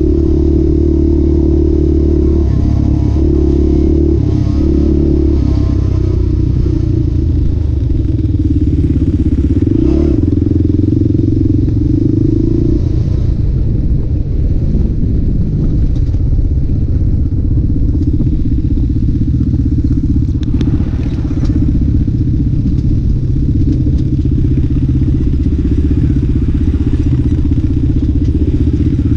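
ATV engine running under way on a dirt trail, loud and continuous. Its note steps up and down with the throttle through the first half and then runs steadier, with a few faint knocks over the bumps.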